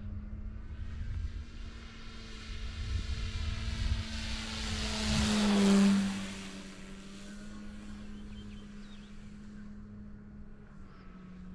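Electric motor and propeller of a large RC aerobatic plane on an 8S battery droning steadily in flight. It swells to a loud fly-past about six seconds in, then drops in pitch and fades.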